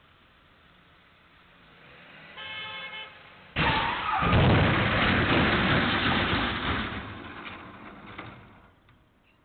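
A short vehicle horn toot, then about three and a half seconds in a sudden loud crashing, clattering noise that goes on for several seconds and fades out, as plastic wheeled trash bins are knocked over and scattered across the street.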